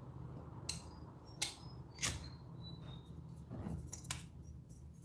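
Faint sharp metallic clicks, about four spread over a few seconds, a few of them followed by a brief high ring, as small metal objects are handled.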